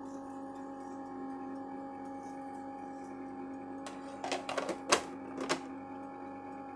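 Gaggia Gelatiera ice cream maker running with a steady machine hum as it churns thickening ice cream. About four seconds in, its clear plastic lid is lifted off with a short run of plastic clicks and knocks, the loudest about five seconds in.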